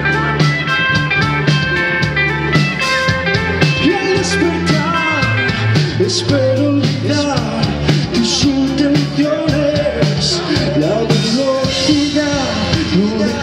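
Live rock band playing: electric guitar, keyboards and drums keeping a steady beat, with a singer singing into a microphone.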